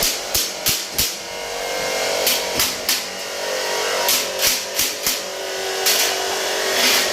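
Sharp knocks in quick groups of three or four, the groups a second or two apart, over a steady background hum.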